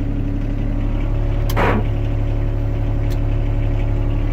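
John Deere 26G mini excavator's diesel engine idling steadily, heard from inside the enclosed cab, with a short pitched sound about a second and a half in.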